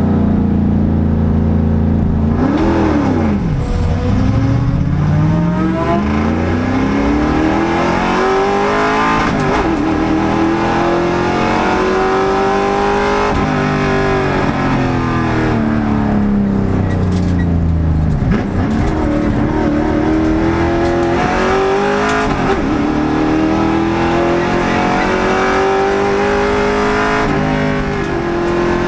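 Race car engine heard from inside the cockpit, revving hard under acceleration, its pitch climbing through the gears with brief dips at each shift. About halfway through it falls away as the car slows, then climbs again.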